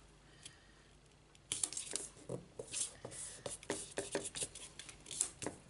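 Green cardstock rustling and crackling under the hands as a freshly glued panel is pressed and smoothed flat on a cutting mat. The crackles start about a second and a half in and go on irregularly.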